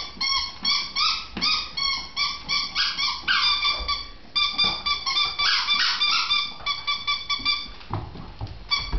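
Bull terrier whining: a long string of short, high-pitched whines, two or three a second with a few held longer, that stops shortly before the end.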